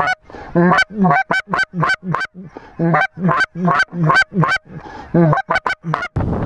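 A hand-blown goose call sounding a fast, even run of loud, short honks, about three a second, to work incoming snow geese and lesser Canada geese. About six seconds in the calling stops and a steady rush of noise takes over.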